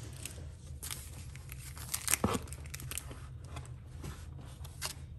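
Clear plastic stamp packaging crinkling and crackling as it is handled, in irregular sharp crackles, with a few louder ones about two seconds in.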